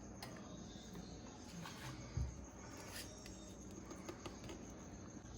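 Quiet kitchen background with a steady, thin high-pitched whine, a few faint light taps and one soft low thump about two seconds in.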